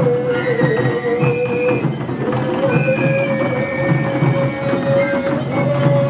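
Japanese festival music: a steady drum beat under a long, slightly wavering held note and a higher melody line.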